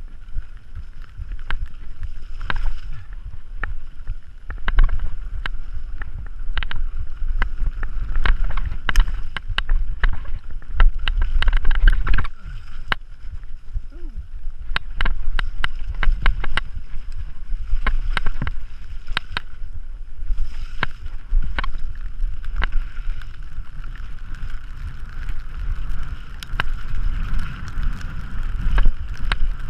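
Mountain bike descending a rough dirt and gravel trail, recorded on a bike-mounted action camera: heavy wind rumble on the microphone under frequent sharp clicks and rattles of the bike and tyres over rocks and ruts.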